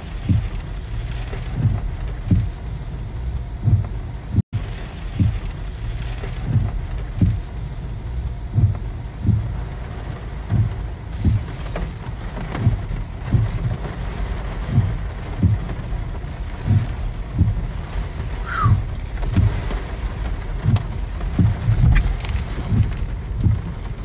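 Steady rain noise with regular low thuds, about one and a half a second.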